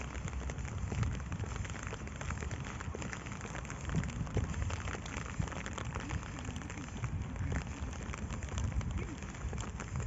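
Rain falling steadily, a dense fine crackle of many small drops, over a low rumble.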